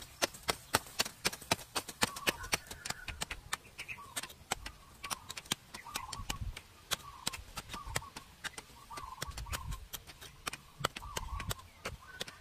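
Rapid, irregular knocking taps, three or four a second and louder in the first half, with a short warbling chirp about once a second and a few dull thuds near the end.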